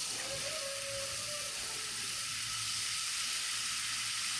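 Garden hose spraying water in a steady hiss, wetting dry cement mix poured around a fence post so that it sets.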